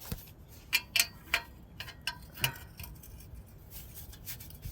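Metal tools clinking: about six light, sharp metallic clicks and taps in the first two and a half seconds, as a wrench or socket is handled and fitted against metal.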